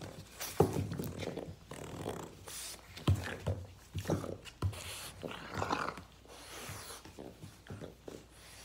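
Boston terrier growling in short, irregular bursts while tugging and shaking a rope toy, with a few sharp thuds along the way.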